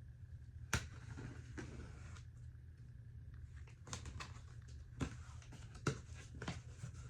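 Cardboard Funko Pop boxes being handled and opened: a handful of sharp taps and knocks with short rustles, spread out over several seconds, over a steady low hum.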